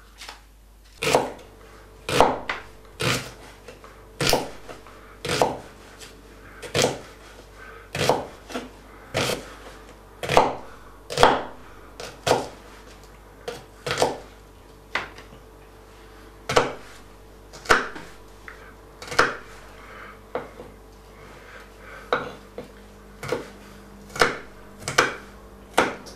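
A kitchen knife slicing an onion on a wooden cutting board: each cut ends in a sharp knock of the blade on the wood, about one a second, slow and even.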